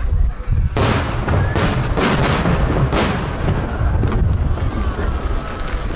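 Aerial firework shells bursting in quick succession, with a string of sharp bangs from about a second in to three seconds in. A steady low rumble of further explosions runs under them.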